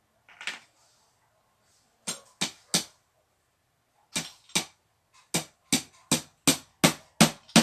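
A series of sharp knocks: three in quick succession, then after a pause a steady run of about nine at roughly three a second.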